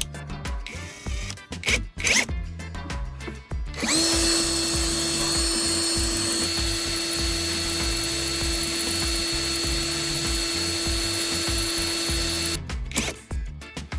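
A small motor runs at one steady pitch for about nine seconds, starting about four seconds in and cutting off near the end, over background music with a steady beat.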